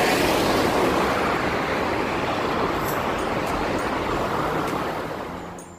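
Road traffic: the steady noise of a motor vehicle passing close by, fading out near the end.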